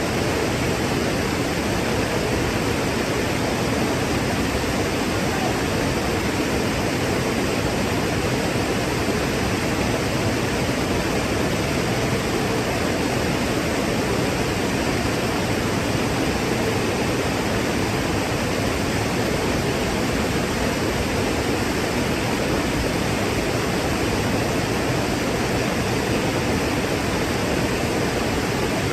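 Waterfall: water pouring and crashing in a steady, unbroken rush, fullest in the lower-middle range.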